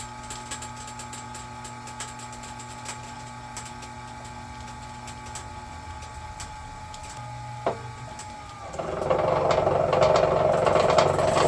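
Electric wire stripping machine running with a steady motor hum; about nine seconds in it turns much louder and rougher as thick aluminum cable is fed into its cutting rollers and blade.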